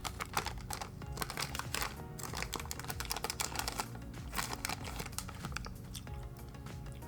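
Plastic candy bag of Smart Sweets sour gummy bears crinkling as it is opened and handled, in a rapid, irregular crackle, over background music.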